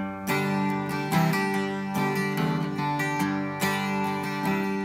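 1968 Martin D-12-20 twelve-string acoustic guitar strummed, a run of full ringing chords with a new strum about every second and several chord changes.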